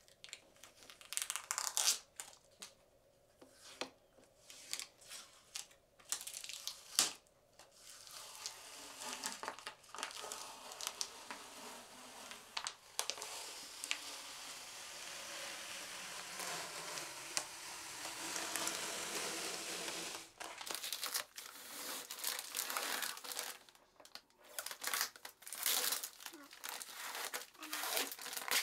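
Thin sheet material being handled, crinkling and crackling irregularly, with a longer stretch of continuous rustling midway.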